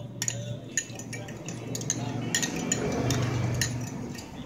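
A metal spoon stirring a wet mixture in a small clear bowl, clinking and scraping against the sides in quick irregular ticks.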